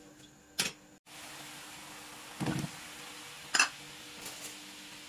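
Pot of pla ra (fermented fish) broth boiling with whole Thai round eggplants in it: a steady bubbling hiss that starts about a second in. A dull thud about halfway through and a sharp click just after.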